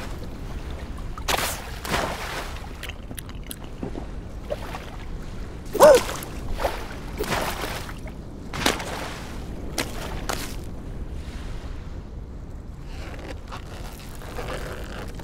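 Cartoon sound effects over a low wind-and-sea ambience: a string of short swishes and slides as a small fish skids across ice. About six seconds in there is a short squeak that falls in pitch, the loudest moment.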